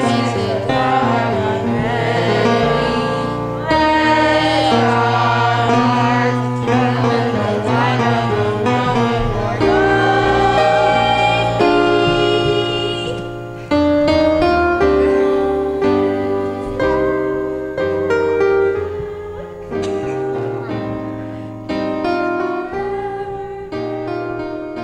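Children's choir singing a gospel-style song with piano accompaniment. About halfway through the voices stop and the piano plays on alone, growing gradually quieter.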